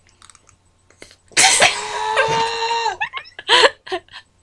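A woman's voice screaming at a steady pitch for about a second and a half, then a few short yelps; it is played as a sound-effects clip.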